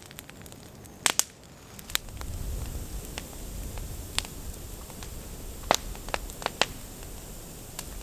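Wood fire of kindling burning between two white ash logs, crackling with scattered sharp pops. A low rumble runs underneath from about two seconds in.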